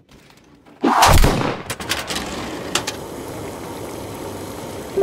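A sudden loud thump about a second in, then crumpled paper crackling and crinkling as it is handled and unfolded, settling into a softer rustle.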